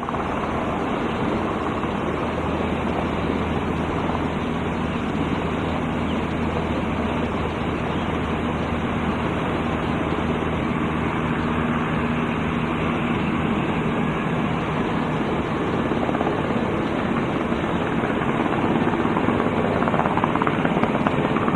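Coast Guard helicopter running on the ground, a steady loud turbine and rotor noise with a low hum that fades out about halfway through.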